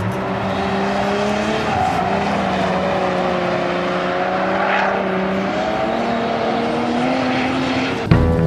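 BMW E30 drift car sliding through a corner: the engine is held high in the revs, its pitch wandering slowly up and down, over a steady hiss of tyres scrubbing on the tarmac. Music with a beat cuts in right at the end.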